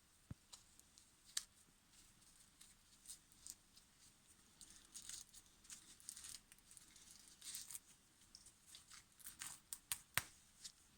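Faint crackling and scraping of plastic wire insulation being slit by a wire stripping machine and peeled away from the copper core, in scattered short clicks and crackles that come thicker in the second half.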